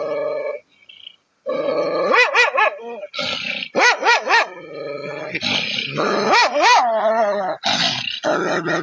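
Dog vocalizing in long, wavering calls whose pitch swings up and down several times, after a held steady note and a short pause. It ends in a quick run of short pulses.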